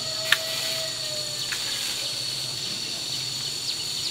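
Steady high-pitched drone of insects, two unbroken tones, with one sharp click about a third of a second in and a few faint ticks later.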